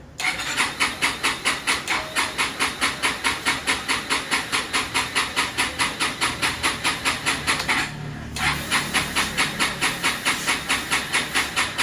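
Yamaha XMAX 250's single-cylinder engine being cranked on its electric starter without catching, in an even rhythm of about four pulses a second; the cranking stops briefly about eight seconds in, then starts again. The no-start is the fault the shop traced to a heavily dirtied throttle body.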